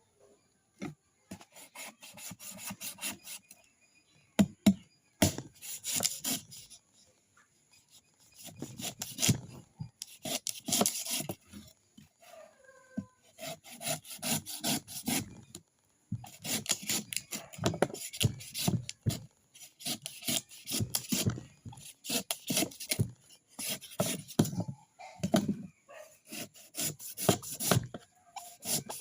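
Coconut being scraped: fast rasping strokes, about three a second, in runs broken by short pauses.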